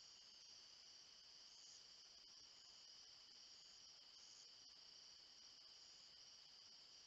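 Faint night insect chorus: a steady high trilling at two pitches, with a still higher buzz that starts and stops several times.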